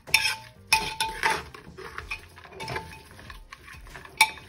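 A metal spoon stirring raw minced beef and soaked chana dal in an aluminium pressure cooker, in a run of short scraping strokes against the pot, with a sharp clink of spoon on metal near the end.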